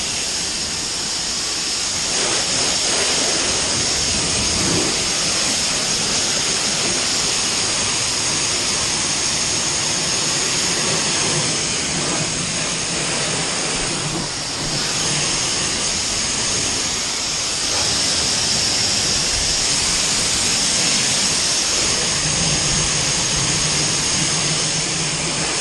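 Pressure washer lance spraying a high-pressure water jet onto a muddy tractor tyre and wheel: a steady, high-pitched hiss and whine of the spray, with a brief dip about halfway through.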